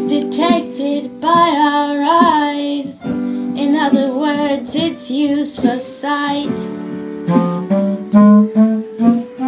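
Young girls singing a slow blues-style song, their voices wavering in pitch. In the second half a woodwind instrument plays steady held notes.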